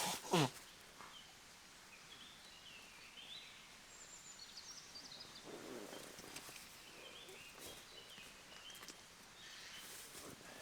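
Faint songbird calls and chirps scattered throughout, over quiet background. A short wavering vocal sound cuts off about half a second in.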